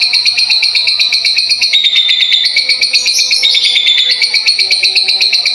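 A caged lovebird sings its long, unbroken 'ngekek' chatter: a very fast, high-pitched run of repeated notes, many per second, that steps up and down in pitch. Indonesian keepers call this rapid, non-stop style 'kongslet'.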